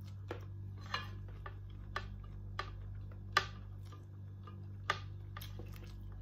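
Eating sounds from a person eating shrimp by hand: irregular sharp mouth clicks and smacks while chewing, about eight of them, the loudest about three and a half seconds in. A steady low hum runs underneath.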